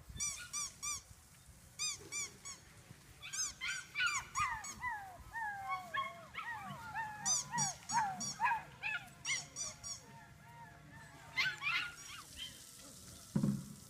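Five-week-old Labrador puppies yipping and whining in many short, high-pitched calls while playing.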